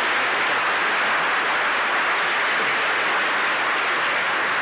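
Studio audience applauding steadily, a dense even clapping without a break.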